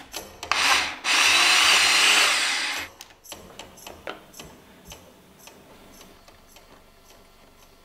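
Single-serve blender with the cup pressed onto its motor base: a brief pulse, then the motor and blades running for about two seconds, blending fruit, oats and milk, and cutting off sharply.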